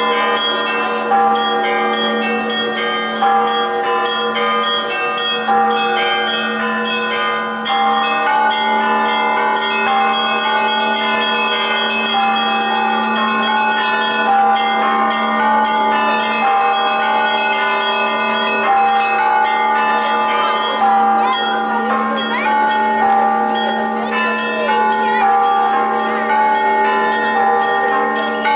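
Russian Orthodox church bells ringing the Easter peal: a deep bell's low tone hums on under a steady stream of strokes from the smaller bells, all ringing over one another.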